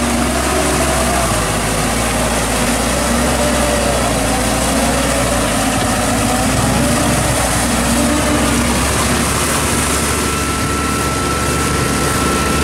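Iseki crawler tractor's diesel engine running steadily as it drives through paddy mud with a rotary tiller working behind it. A thin steady whine joins about ten seconds in.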